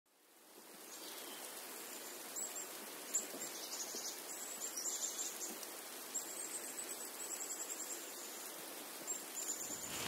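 Black-capped chickadees calling to each other from the trees: faint, high, thin notes in quick runs over a steady outdoor hiss.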